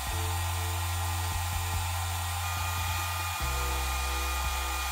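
Handheld hair dryer blowing steadily at close range, heating a sticker on a cardboard toy box to loosen its adhesive.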